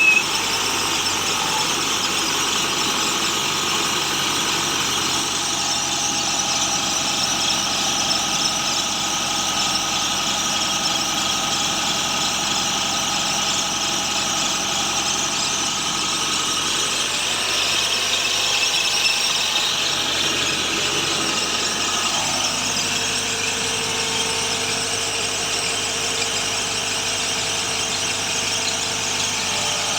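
Horizontal directional drilling rig at work: a steady engine with a high-pitched squealing whine over it. About 22 seconds in, one tone drops to a lower steady pitch.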